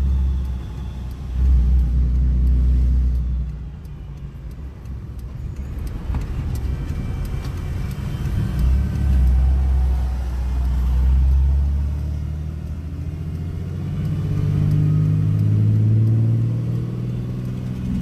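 Low engine drone and road noise heard inside a moving vehicle's cab, easing off about four seconds in and building again after.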